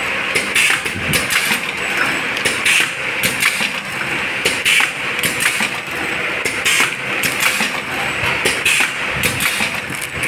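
Automatic pouch packing machine running: a steady mechanical din with a quick, uneven run of clicks and clacks as its sealing and cutting jaws cycle and finished pouches drop out.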